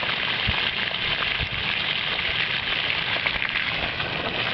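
Water from a hose pouring at just under 7 gallons per minute into a 1.25-inch PVC P-trap, spattering out around it and splashing onto the ground in a steady hiss.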